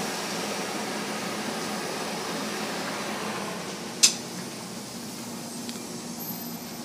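Steady hum and hiss from a Metra bilevel passenger car beside the platform, its equipment running. A single sharp click about four seconds in, after which the hum eases slightly.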